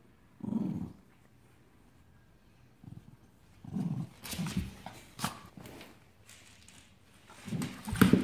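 Brown cockapoo growling in short low bursts as it is handled, about half a second in, again around four seconds and near the end, with a few sharp clicks from the scuffle on the floor.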